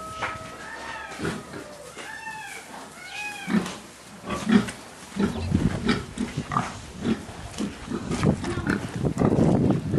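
Berkshire pigs giving a few short squeals that rise and fall about one to three seconds in, then knocks and scuffling of trotters on wet concrete and mud as they move out of the pen.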